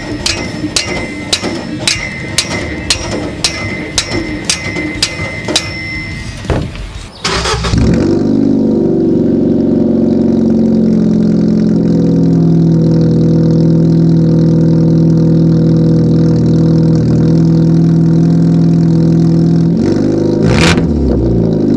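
Hammer blows on a steel exhaust pipe, about two a second, for the first six seconds. About seven seconds in, the Mk6 Ford Fiesta's engine starts and idles steadily through its new aftermarket exhaust, a loud low drone, with one brief rev near the end.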